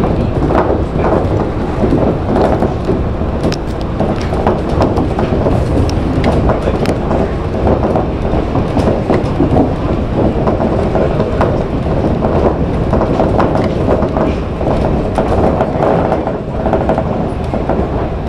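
Shonan Monorail 5000-series suspended monorail car running at speed, heard from inside the cab: a steady rubber-tyred running noise from the car hanging under its box-girder track, with frequent short knocks and rattles.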